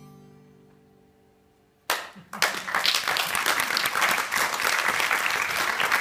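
Acoustic guitar's final chord rings and fades, then about two seconds in the audience starts applauding, loud and steady.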